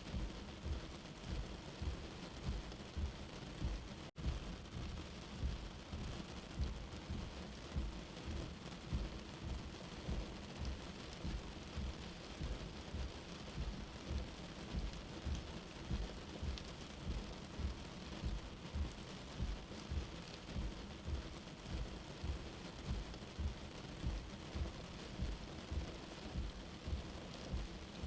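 Steady rain with a low rumble underneath that pulses about twice a second. The sound cuts out for an instant about four seconds in.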